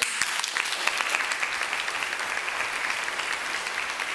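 Audience applauding, starting all at once and then keeping up a steady clapping.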